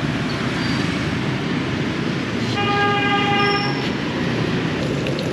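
A vehicle horn sounds once, a steady honk held for a little over a second about two and a half seconds in, over a continuous rush of street traffic noise.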